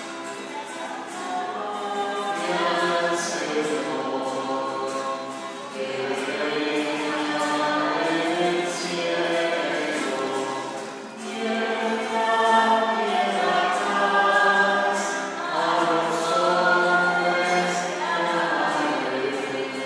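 A choir singing a religious song, several voices together in sustained phrases that swell and ease, with a short break about eleven seconds in.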